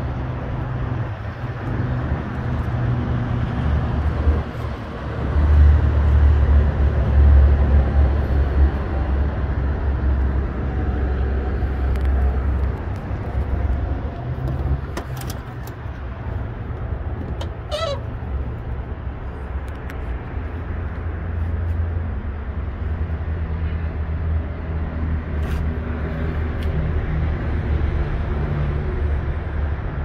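A vehicle engine idling, a steady low rumble that swells for several seconds about five seconds in. A brief high squeal comes about two-thirds of the way through.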